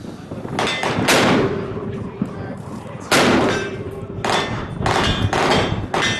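Suppressed Sig Sauer SSG 3000 .308 bolt-action rifle firing: two loud shots about two seconds apart, each a sharp report with a ringing tail, followed by fainter shots and range noise.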